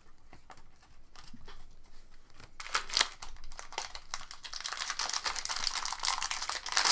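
A few light clicks of trading cards being handled. Then, about two and a half seconds in, the foil wrapper of a Bowman Chrome baseball card pack starts crinkling densely as it is handled and torn open.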